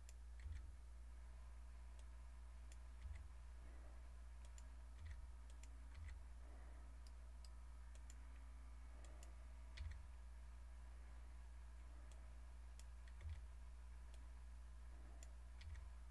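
Faint computer mouse clicks, about seven scattered irregularly, over a low steady hum.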